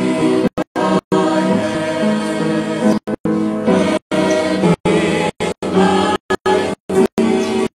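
A choir singing a hymn in long held notes. The sound cuts out completely for an instant many times over, about once every half second to second.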